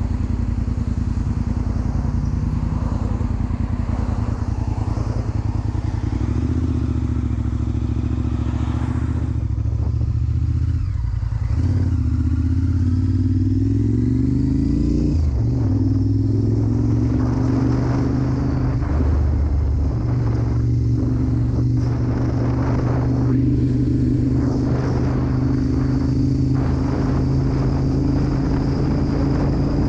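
Sport motorcycle engine running under way. About midway its pitch climbs for a few seconds as the bike accelerates, drops sharply at a gear change, then holds steady at cruising speed.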